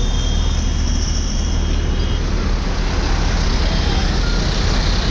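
Steady, loud outdoor noise of road traffic and moving floodwater, with a deep rumble underneath and a thin high tone that stops about two seconds in.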